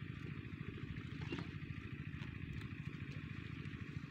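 Small engine of an irrigation water pump set running steadily, with a fast, even beat.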